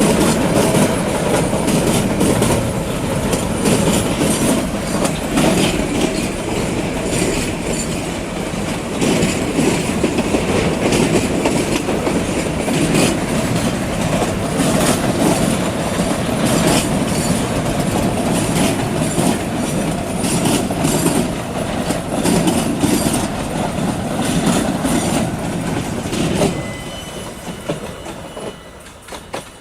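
Empty freight wagons rolling past on the rails, their wheels clacking over the rail joints in a steady loud rumble. The sound falls away sharply near the end as the last wagon passes.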